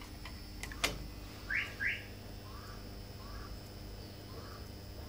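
A sharp click about a second in as the clamp meter's jaws close around the cable, then two short rising chirps and a few fainter ones, over a low steady hum.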